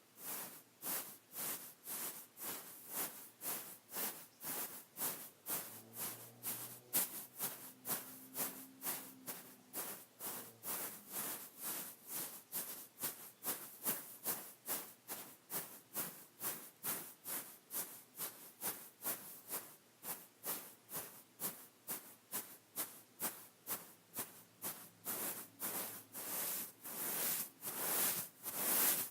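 Repeated scratching strokes across a beaded pillow, about two a second, steady and evenly paced, growing a little louder near the end.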